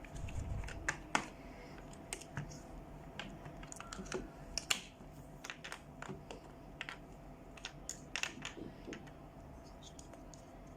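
Irregular light clicks and taps of hard plastic toy parts being handled, with a few sharper knocks about a second in and near the middle.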